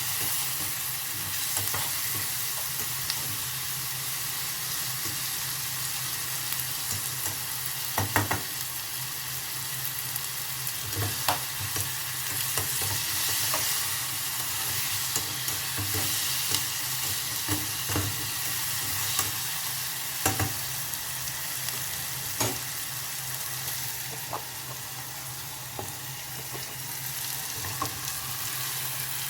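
Vegetables sizzling as they stir-fry in a hot pan, with a steady hiss broken by a dozen or so short knocks and scrapes of a utensil against the pan.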